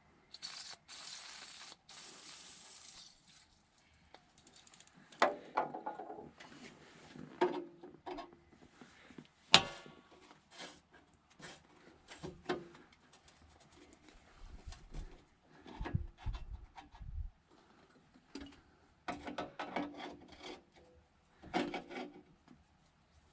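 Hand-tool work on machine metal: scraping and rubbing with scattered knocks and clinks, as stuck screws are worked loose. A brief hiss comes about half a second in and lasts a couple of seconds.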